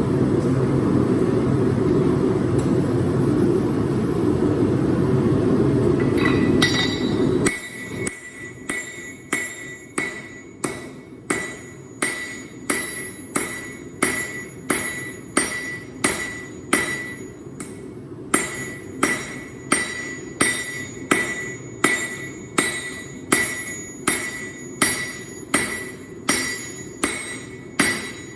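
A loud, steady, low rushing noise stops abruptly about seven seconds in. It gives way to a blacksmith's hammer striking hot Damascus steel on an anvil at a steady pace of about one blow a second, each blow ringing.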